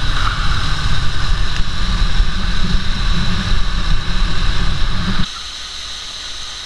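Wind rumbling on the microphone of a moving motorcycle, with its engine running underneath. About five seconds in it cuts suddenly to the quieter, steady rushing hiss of a waterfall in a canyon.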